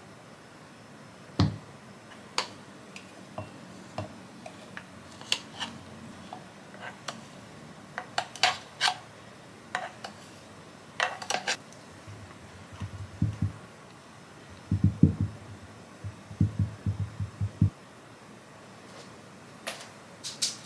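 Kitchen handling sounds: a spoon scraping and knocking thick green smoothie out of a plastic food-chopper bowl into a glass mug, with scattered sharp clicks and clinks. In the second half comes a run of soft low thuds, the bowl being tapped and knocked to empty it, and a few more clicks near the end.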